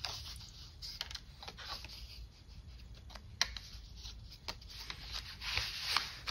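Die-cut cardstock ephemera pieces rustling and sliding against one another as they are handled and spread out on a table, with a few light clicks. The rustling grows louder near the end.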